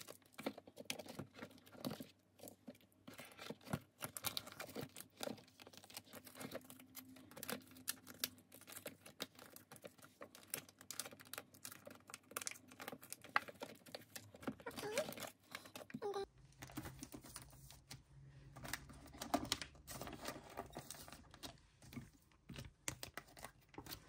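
Photocards and plastic binder sleeves being handled: a steady run of soft crinkles, taps and clicks.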